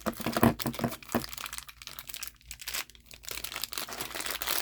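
Plastic packaging bag crinkling and tearing as it is opened by hand, a run of irregular crackles and small snaps.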